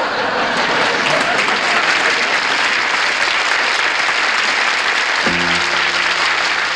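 Studio audience applauding. About five seconds in, a piano starts a held chord under the applause.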